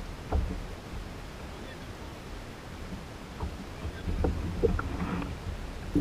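Wind rumbling on the microphone over light sea-water noise around a plastic fishing kayak, with a few short light knocks, one about a third of a second in and a cluster around four to five seconds in.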